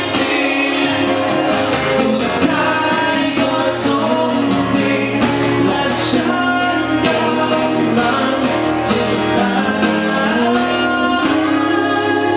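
A song with singing over a band accompaniment, with a steady beat.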